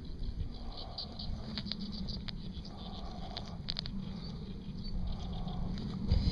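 Small scattered clicks and rustling from hands working steel hemostat forceps at a bass's mouth to free a swallowed hook, over a low steady rumble.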